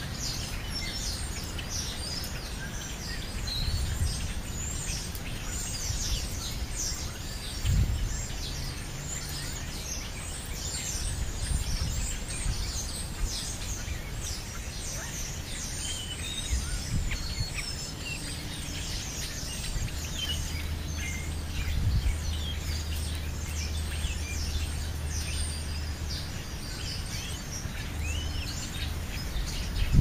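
Many birds chirping in short, high calls over a low outdoor rumble. A steady low hum joins in the second half, and there is a single dull thump about eight seconds in.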